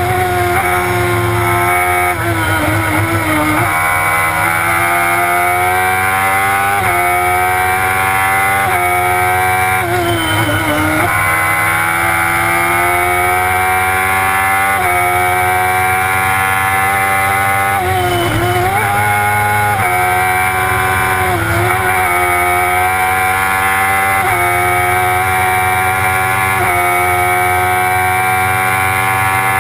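Silver Car S2 race car engine heard from inside the cockpit, pulled hard uphill: the engine note climbs through each gear and drops sharply at each gear change. A few times, around three, ten, eighteen and twenty-one seconds in, the revs fall and waver as it slows and shifts down for a bend, then climb again.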